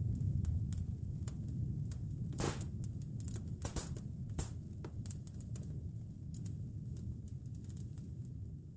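Wood fire crackling in a fireplace: irregular sharp pops and snaps, a few louder ones a few seconds in, over a low steady rumble.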